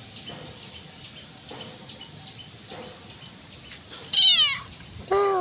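Orange tabby cat meowing twice: a loud, high meow falling in pitch about four seconds in, then a lower meow near the end.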